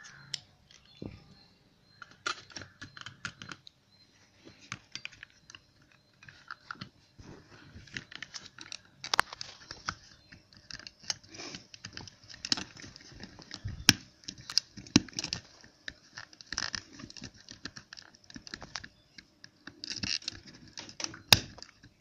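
Hands handling and fitting back together the plastic case and parts of a 12 V DC adapter: irregular clicks, taps and light scraping, with a few sharper snaps.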